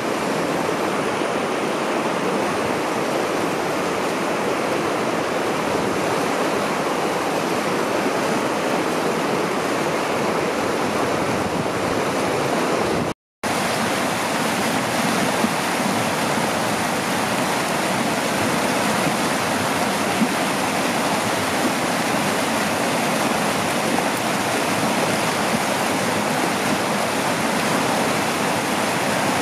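Steady rush of a river running over rocks in shallow rapids, cutting out for a split second about halfway through.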